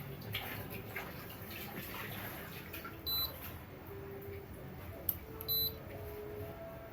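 Two short, high electronic beeps, the first about three seconds in and the second about two and a half seconds later, over a low steady background.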